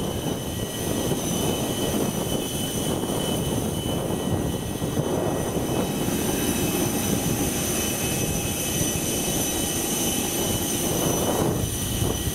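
Steady jet whine over a broad rumble from a parked Airbus A321neo during boarding, the sound of its auxiliary power unit running. The high whine holds one pitch.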